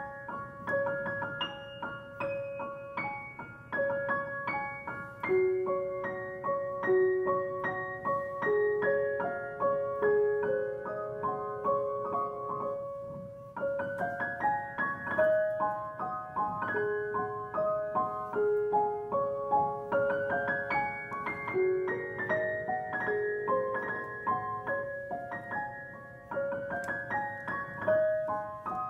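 Solo piano playing a light, music-box-style piece high on the keyboard. Quick, crisp upper-register notes run over a lilting accompaniment, with brief pauses between phrases.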